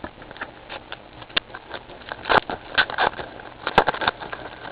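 Plastic trading-card pack wrapper crinkling and cards being handled, with irregular crackles and clicks, densest and loudest over a second or so in the middle and again near the end.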